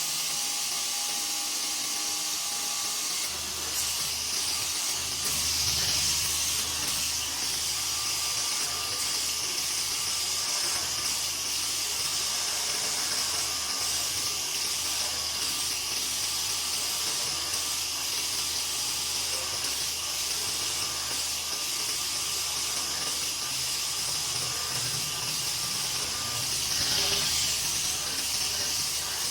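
Homemade belt-type surface grinder running, its abrasive belt grinding across a small workpiece during a pass: a steady hiss over a low motor hum, swelling about six seconds in and again near the end.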